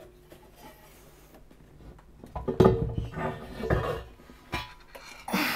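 Metal parts of a scanner's chassis clattering and knocking as they are worked loose by hand. There is a cluster of knocks and rattles from about halfway through, then a single click shortly before the end.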